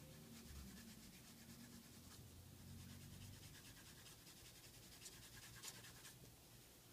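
Faint, quick back-and-forth scratching of a short Prismacolor pencil shading on drawing paper, stopping about six seconds in.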